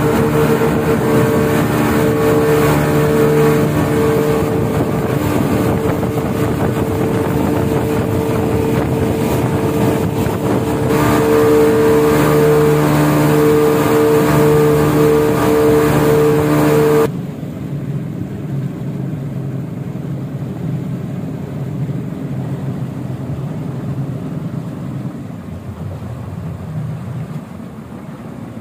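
Boat engine running steadily with a constant hum and a rush of wind and water. About two-thirds of the way through it drops suddenly to a quieter, duller rumble.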